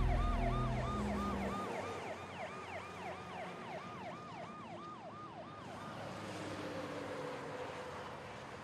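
Ambulance siren yelping: a fast rising-and-falling wail about four times a second that fades out about five seconds in, leaving a steady rushing noise.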